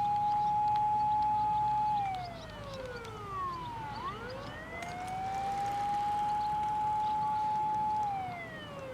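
Japanese fire engine siren wailing in slow cycles. It holds a steady high note, falls about two seconds in, sweeps back up about four seconds in, holds again and starts falling near the end. A second, fainter siren overlaps it on a different cycle.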